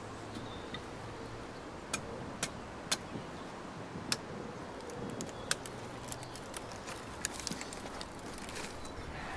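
Billhook chopping into the base of a hedge stem: a series of sharp, irregular strikes of the steel blade biting into the wood, a second or so apart. A faint low drone runs underneath.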